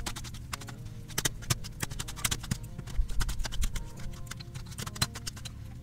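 Metal meat-shredding forks clicking and scraping irregularly against a stainless steel pan as smoked pork is pulled apart.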